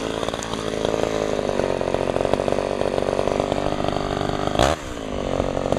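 Sears Suburban Craftsman 3.75 chainsaw's two-stroke engine running steadily. Near the end its note breaks sharply and the loudness dips before it picks up again.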